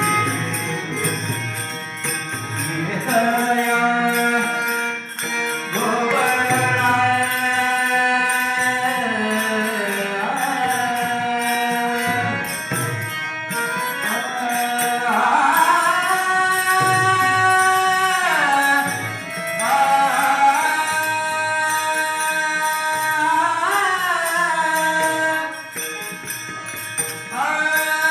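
Marathi devotional bhajan: a singer holds long notes and slides between them over instrumental accompaniment, with a steady metallic jingle of hand cymbals keeping the beat.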